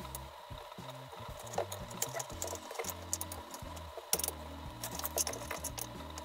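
Scattered small clicks and light metallic rattles of a hand tool and bolts being handled while a gaming chair is assembled, with one sharper click about four seconds in.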